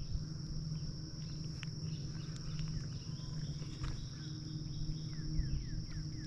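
Steady high-pitched insect buzz over a low steady hum, with a quick run of about six short falling chirps near the end.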